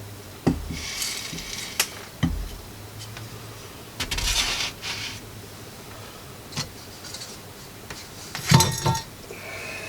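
Scattered metallic clinks, knocks and rattles with some rustling, as metal hand tools and mill parts are handled.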